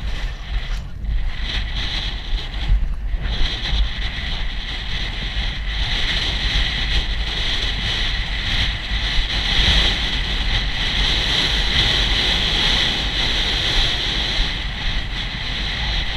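Wind rushing and buffeting over the microphone of a camera carried by a galloping rider, a steady loud roar with irregular jolts.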